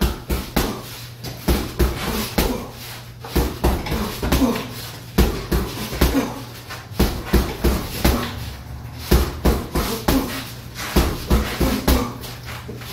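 Gloved punches landing on an Everlast heavy bag in quick, irregular strikes, about two to three a second, over a steady low hum.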